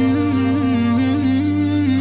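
Background nasheed-style music: a wordless hummed melody stepping up and down in small turns over a steady low drone.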